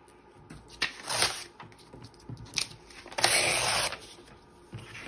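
Paper being handled and lined up on a cutting mat: a few light taps and two short rustles, the longer and louder one about three seconds in.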